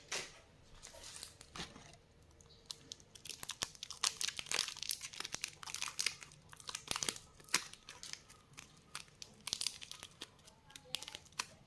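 Plastic lollipop packaging being crinkled and torn open by hand, in quick irregular crackles that grow busier about four seconds in.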